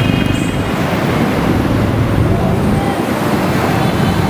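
Steady, loud roadside traffic noise from passing buses and cars, mixed with wind buffeting the camera microphone.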